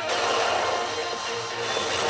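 Electronic music and sound effects from a P北斗の拳9闘神 pachinko machine's speakers, with a sudden change in the sound at the start and gliding tones through it.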